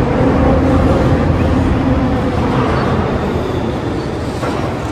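A 35-tonne overhead travelling crane carrying a suspended railcar across the works: a steady electric drive drone with a low hum, getting slightly quieter toward the end.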